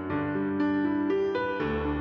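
Background music: a slow keyboard piece of sustained notes and chords, with a new note coming in about every half second.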